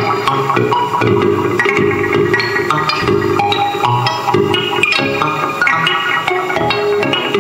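Live music played loud and steady, with quick runs of short pitched notes over lower bass notes.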